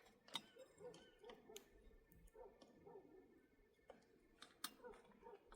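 Near silence, broken by faint scattered clicks and light knocks from objects being handled, the sharpest about a third of a second in and again near the end.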